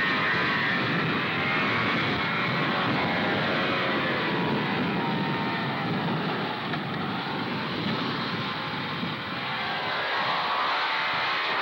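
Two-stroke snowmobile engine running as the sled rides across the snow, its pitch rising and falling slowly as the speed changes.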